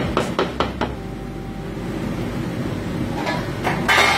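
A spoon stirring thick chicken masala in a stainless steel stockpot, knocking against the pot several times in the first second. A brief clatter follows near the end, over a steady low hum.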